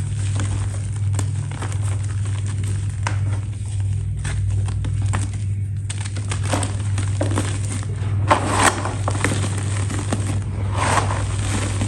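Close-up crisp crackling and crunching as a brittle, crumbly material is crushed and broken apart, with two louder crunches in the second half, over a steady low hum.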